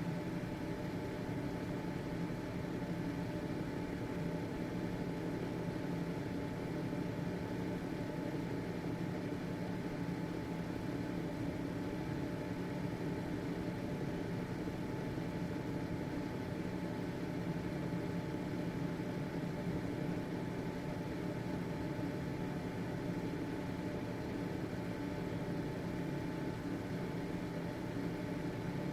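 Household ventilation fan running steadily: an even motor hum with a few faint steady tones over the rush of moving air.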